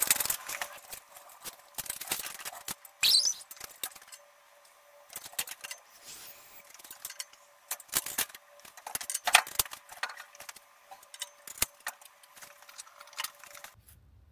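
Scattered metal clanks, clicks and chain rattles from a Pittsburgh shop engine crane as an LS V8 engine is manoeuvred into the engine bay. The knocks come at uneven intervals over a faint steady whine that stops near the end.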